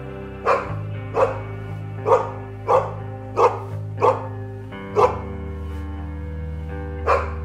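A dog barking repeatedly, about eight sharp barks well under a second apart, with a pause of about two seconds before the last bark. Background music plays steadily underneath.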